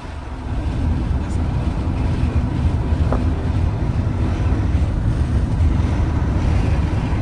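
Steady low rumble of a car on the move, from road and wind noise.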